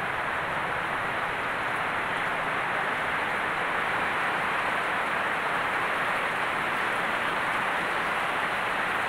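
Heavy rain pouring down steadily onto leaves and plants, a dense, even hiss with no breaks.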